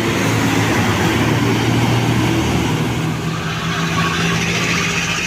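A bus's diesel engine running as it passes close by, with tyre and road noise. Its low engine note steps up in pitch about three seconds in.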